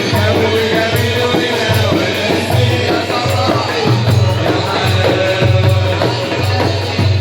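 Simsimiyya folk music: a singer with the band over a steady, pulsing low beat.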